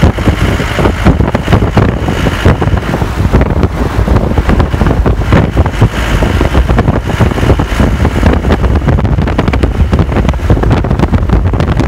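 Wind buffeting the microphone over the steady rumble of a vehicle driving along a paved road, heard from inside the moving vehicle.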